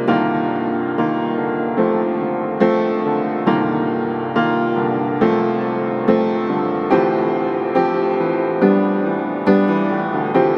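Background music: a slow, gentle piano piece, a new note or chord struck about once a second and left to ring.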